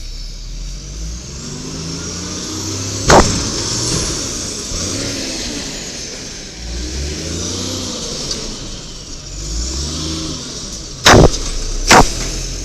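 Garbage truck's Cummins L10G natural-gas engine revving up and settling back twice, with a very loud bang about three seconds in and two more near the end.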